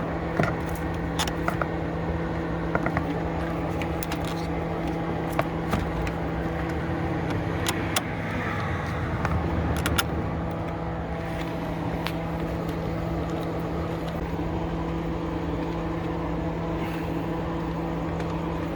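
Scattered sharp metallic clicks and clinks, mostly in the first half, from a battery cable being reconnected, over a steady low hum.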